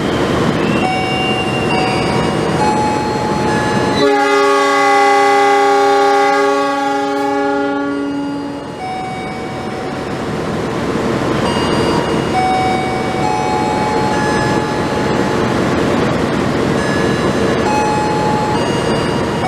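Railway locomotive's multi-tone horn sounding one long blast, a chord of several notes that starts abruptly about four seconds in and lasts about four and a half seconds, the Semboyan 35 horn signal of Indonesian railways. Under it, the steady loud rumble of the train running.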